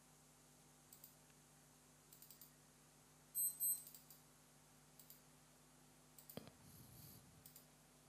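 Faint, scattered computer mouse clicks over quiet room tone, with a louder pair of clicks about three and a half seconds in.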